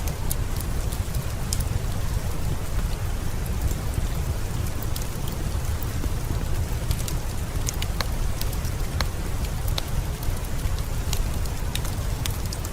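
Heavy rain falling steadily, with a deep steady rumble underneath and scattered sharp clicks of individual drops.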